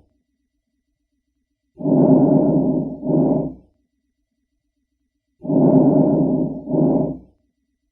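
Normal vesicular breath sounds heard through a stethoscope over the chest: two breath cycles, each a longer low, soft rustling inhalation followed at once by a shorter exhalation, with silence between breaths. The inspiration lasting longer than the expiration is the pattern of healthy lung tissue.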